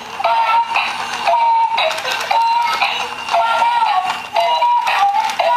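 Battery-operated walking plush toy dog playing its built-in electronic tune, a simple one-line melody of short notes that keeps going as the toy walks.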